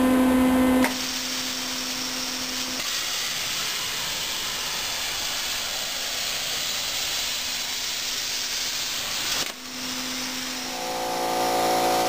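Thermal Dynamics Pakmaster 50XL plasma cutter cutting through steel rebar: a steady hiss of the arc and air jet that starts about a second in and stops abruptly about nine and a half seconds in. A steady pitched machine hum is heard before the cut starts, and a different pitched hum comes in near the end.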